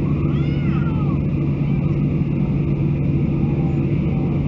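Cabin noise of a Boeing 737-800 on the ground, its CFM56-7B engines at idle: a steady hum.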